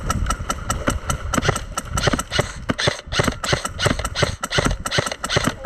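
Wolverine MTW HPA airsoft rifle firing rapid shots at an even pace of about five a second, each a sharp crack.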